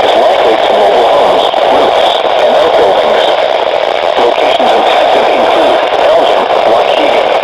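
Radio broadcast heard through heavy static: a steady, muffled hiss with a faint, garbled voice underneath, thin and cut off at the top like a weather-radio receiver.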